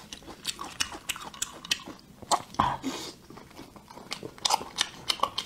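Close-miked chewing of a mouthful of chili-sauced food, with irregular wet mouth smacks and clicks.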